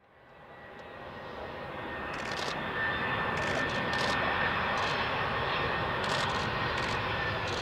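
Airbus A320's CFM56-5B jet engines on approach to land: a steady rumble with a thin high whine, growing louder over the first few seconds and then holding steady.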